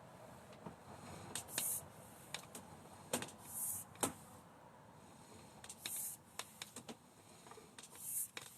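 Sewer inspection camera push-cable and equipment being handled as the camera is fed down the pipe: scattered sharp clicks and short, high hissing rasps about every two seconds.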